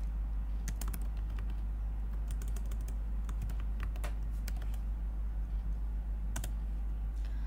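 Typing on a computer keyboard: irregular, separate key clicks in small clusters, over a steady low hum.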